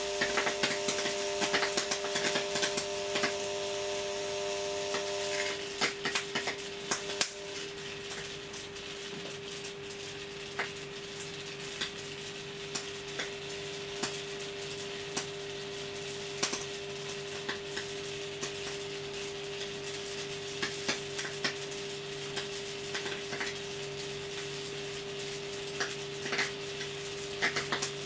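High-voltage arcs from a microwave oven transformer crackling irregularly through a plasma TV panel, with a steady electrical hum underneath. A few higher tones in the hum drop out about five seconds in, and a lower hum comes in about halfway through.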